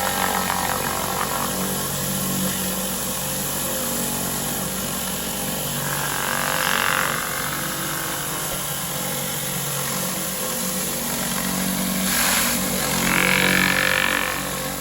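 Pressure washer's engine running steadily, with the hiss of the high-pressure water jet swelling twice: about six seconds in and again near the end.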